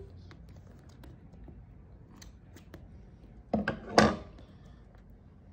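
Scissors snipping at plastic wrap on a small cardboard box, with faint scattered clicks. Near the end come two sharp knocks as the metal scissors are set down on a wooden table.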